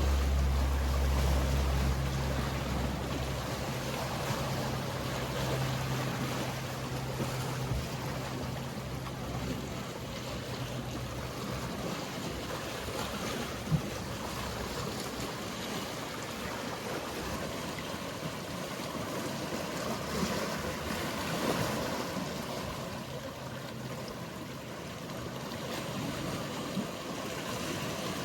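Sea waves washing steadily while a boat's engine hums low, loud at first and then fading away about twelve seconds in. A single sharp knock about fourteen seconds in.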